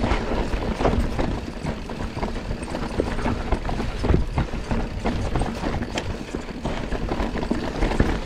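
Mountain bike riding down a dirt forest singletrack: tyres rolling over the ground under a constant low rumble, with frequent knocks and rattles from the bike as it goes over roots and rocks.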